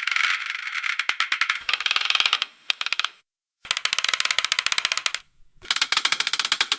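Roulette wheel with the ball clicking rapidly against the frets as it spins, in three separate runs. The first run slows and thins out before stopping, and the last cuts off abruptly.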